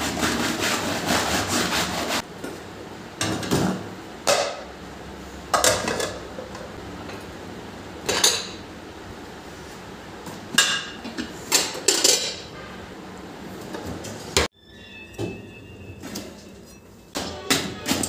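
Dishes clinking and knocking as glass bowls, plates and a clay pot are set down one by one into a stainless steel pull-out kitchen drawer basket, a dozen or so separate knocks. At the start, a cloth rubbing over the drawer's mat.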